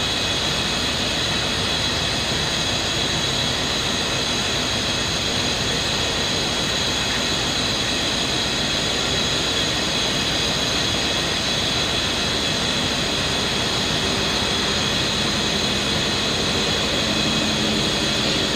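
Krupp M1500B diesel-hydraulic locomotive running steadily: a constant engine rumble with a steady high whine over it.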